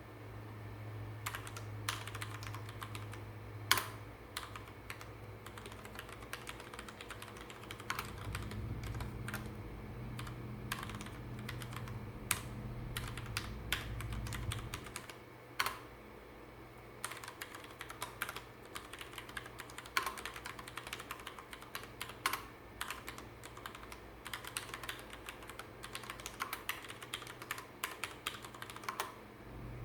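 Typing on a Ducky One mechanical keyboard with Cherry MX Red linear switches: a fast, uneven run of key clacks with a few louder strokes scattered through.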